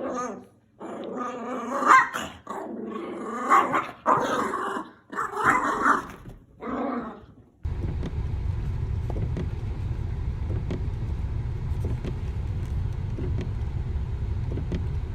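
A dog growling and barking in loud bursts with short pauses. About halfway through it cuts off suddenly and a steady low rumble takes over.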